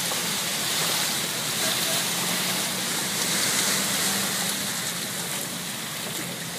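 Shallow water moving and lapping over rocks, a steady hiss.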